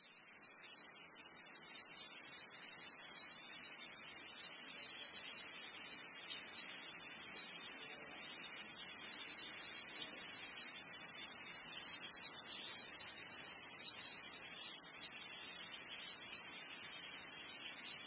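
Steady high-pitched hiss of water jetting under pressure from a pinhole leak in a garden hose, fading in over the first second or two.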